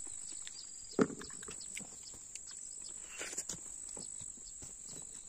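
Close-up chewing and mouth smacks of someone eating juicy watermelon, with a sharp smack about a second in, over a steady high-pitched drone of insects.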